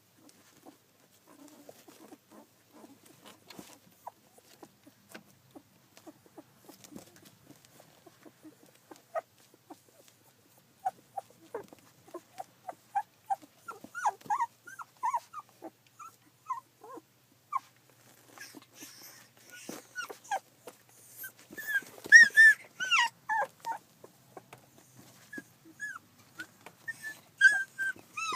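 Two-week-old rough collie puppies crying with many short, high calls. The calls are few and faint at first, come more often from about ten seconds in, and are loudest about two-thirds of the way through.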